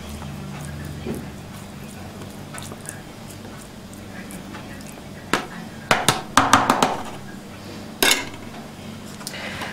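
A spoon spreading and levelling a layer of chopped mushrooms in a plastic food container, with a cluster of clinks and taps of the spoon against dishes about six seconds in and a single sharp knock about eight seconds in.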